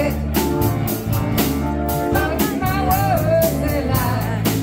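Live band playing: drum kit with cymbal strikes keeping a steady beat, acoustic guitar and electric keyboard, with a wavering lead melody over them through the middle.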